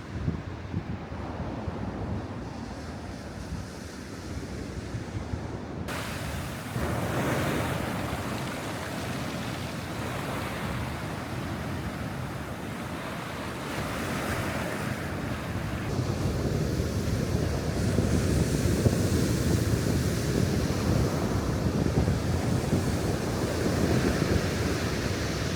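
Black Sea surf washing onto the shore in slow swells, with wind rumbling on the microphone; the sound grows fuller and louder over the second half.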